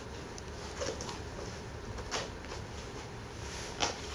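Quiet room tone with three faint clicks or knocks of small objects being handled, the loudest near the end.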